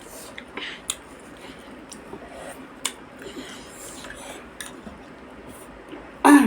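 Cutlery clicking now and then against dishes during a meal, with faint eating noises. A short, loud burst of voice comes near the end.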